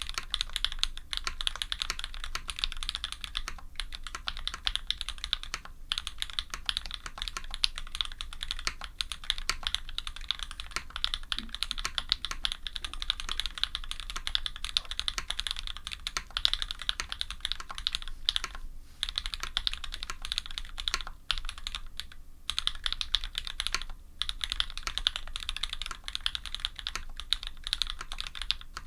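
Fast, continuous typing on an F1-8X custom mechanical keyboard with lubed SP-Star white switches, an aluminium sandwich plate and GMK keycaps. It is a dense stream of keystrokes with a few short pauses.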